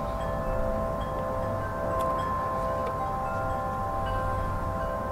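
Wind chimes ringing, several metal tones sounding and fading over one another, with a couple of faint clicks.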